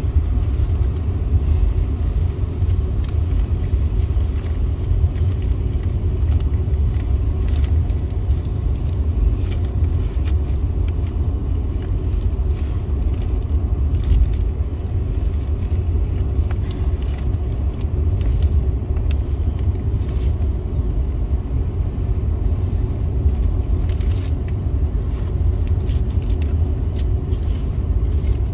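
Steady low rumble of road and tyre noise inside a car's cabin at highway speed on a wet road, with faint scattered ticks of rain on the glass.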